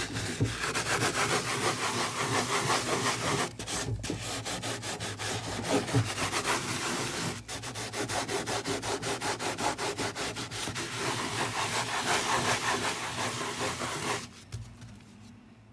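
Kitchen sponge scrubbing Cif cream cleaner into the moulded plastic of a caravan waste water container, in quick, even back-and-forth strokes that stop about a second and a half before the end.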